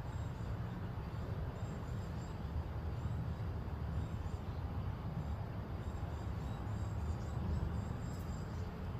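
Outdoor ambience: a steady low rumble with faint, short high-pitched chirps repeating throughout, more of them near the end.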